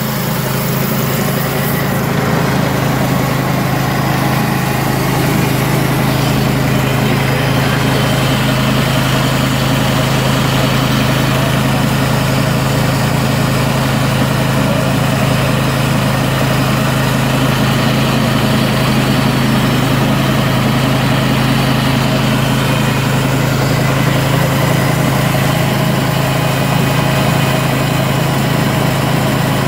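Portable band sawmill's gasoline engine running steadily at a constant pitch while the band blade saws through a log.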